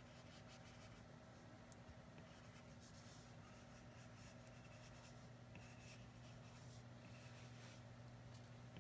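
Faint, irregular scratching and tapping of a stylus tip stroking across an iPad's glass screen while drawing, over a low steady hum.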